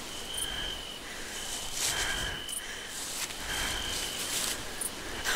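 Night-time cricket chirping: a high, even trill about a second long that repeats roughly every second and a half to two seconds, over a soft steady hiss, with short rustles now and then.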